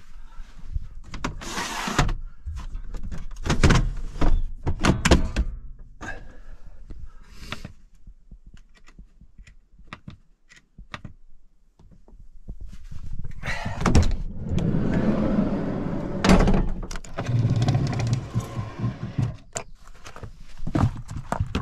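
Knocks, thunks and clicks of things being handled and set down inside a camper van, with a few seconds of louder scraping noise and a low hum about two-thirds through, then more knocks.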